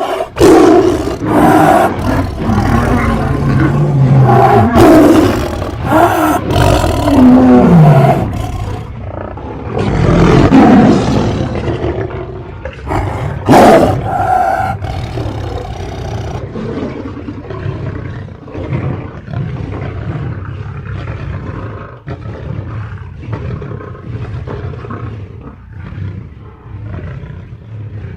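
Lion and tiger fight sound effect: repeated loud roars and snarls, the loudest in the first half, giving way to quieter, continuous low growling in the second half.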